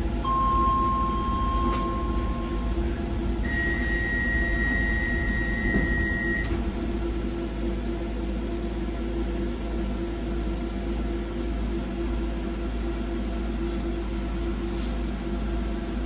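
Steady electrical and mechanical hum of a Docklands Light Railway train, heard from inside at the front. A steady tone sounds for about two seconds near the start, then a higher tone for about three seconds.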